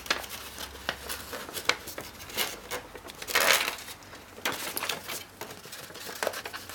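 Origami paper crinkling and rustling as fingers fold and crease it, with many light crisp ticks and a longer rustle about three and a half seconds in.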